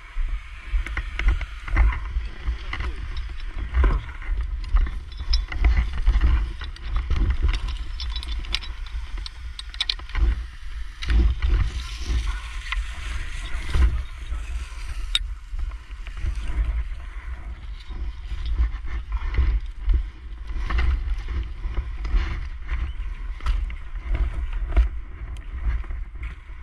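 Heavy irregular rumble of movement and wind buffeting on a firefighter's helmet camera, with the hiss of fire hose nozzles spraying water on a grass fire and scattered knocks and crackles of footsteps on burnt grass.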